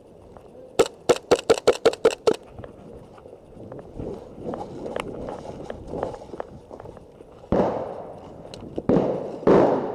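Airsoft pistol fired about eight times in quick succession, sharp snapping shots a little over five a second, followed several seconds later by two louder bursts of rushing noise.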